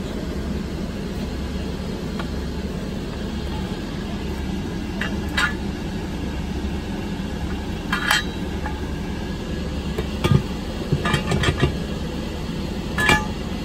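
Steel 3-ton jack stands being handled: several short metallic clinks and clanks as one is lifted, its notched ratchet bar moved, and set back down, over a steady low hum.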